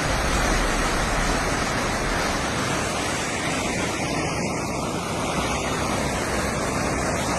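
Floodwater rushing in a loud, steady, even rush of water noise.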